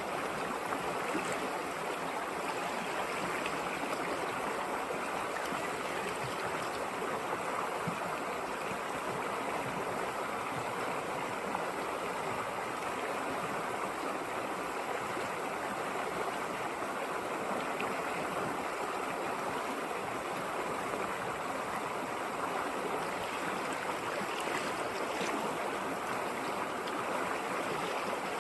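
A river or stream flowing steadily over rocks, a constant rushing and babbling of water.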